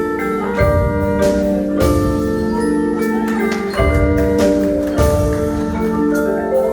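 High school marching band music: the front ensemble's mallet percussion (marimba, vibraphone, chimes) rings out held chords, cut through by several heavy low drum strikes.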